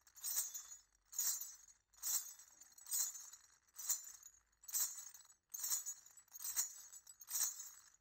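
Jingling metal percussion struck in a steady beat, a little faster than once a second, each strike ringing briefly before the next.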